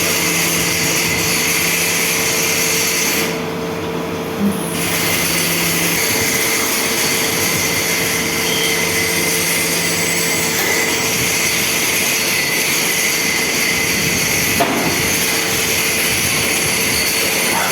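CNC machine running while it machines a stainless steel ring: steady mechanical noise with a constant hum-like tone and a high hiss. The hiss drops out briefly a few seconds in.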